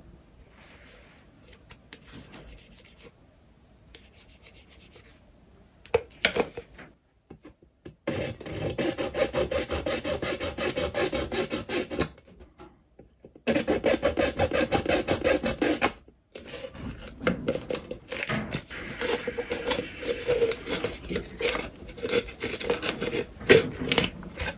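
Faint scratching of a pencil marking plastic, then a junior hacksaw sawing through thin white plastic in quick back-and-forth strokes. The sawing comes in three long runs with short pauses between them.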